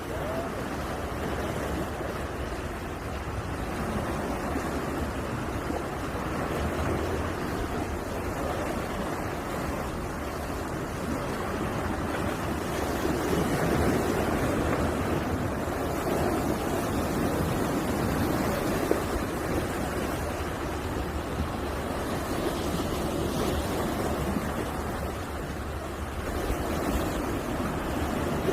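Sea surf washing steadily, with wind on the microphone. The noise swells and eases slowly.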